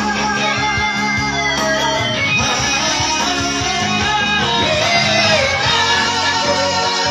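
Men's vocal trio singing into microphones over guitar accompaniment, with two voices holding long notes.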